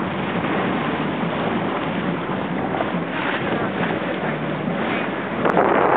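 Wind buffeting the microphone over water rushing past a sailboat under way, a steady hiss with a stronger gust near the end.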